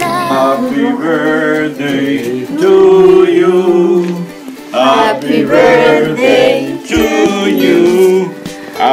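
Background pop song with a singer's voice over instrumental accompaniment.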